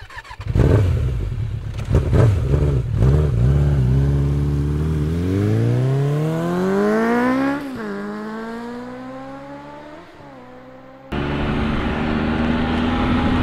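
An engine is revved in several quick blips, then pulls away with a climbing pitch that breaks off and falls away, fading. About eleven seconds in, it cuts abruptly to a Triumph Explorer's three-cylinder engine running at a steady speed under wind noise.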